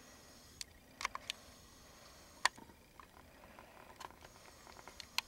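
Handling noise on a handheld camera: scattered sharp clicks and taps, a few close together about a second in and a louder one about two and a half seconds in, over a faint steady hiss.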